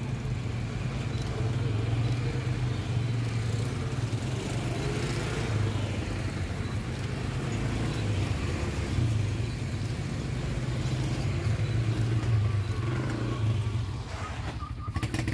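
Quad bike (ATV) engines running with a steady low drone as the bikes ride past. The drone eases near the end, and a few sharp clicks follow.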